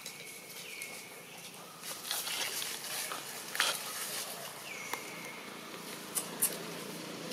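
Dry leaf litter rustling and crackling as long-tailed macaques move over it, with a few short high-pitched calls that slide down and hold their note, three times.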